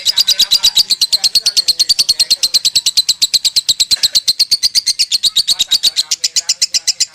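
Lovebird singing a long, unbroken run of rapid high chirps, about a dozen a second, without a pause. This is the continuous 'konslet' (ngekek) song that lovebird keepers prize.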